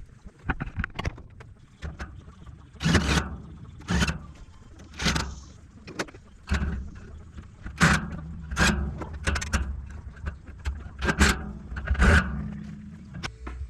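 An uneven series of short knocks and bangs, about a dozen, roughly one a second.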